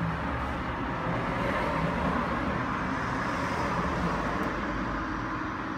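Steady road traffic noise from passing cars, swelling slightly about two seconds in.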